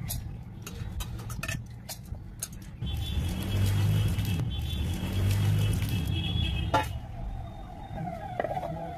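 Water poured into a stainless-steel mixer jar of soaked rice, a hissing splash from about three seconds in to about seven seconds, over a low vehicle rumble; a few sharp clicks come before and after the pour.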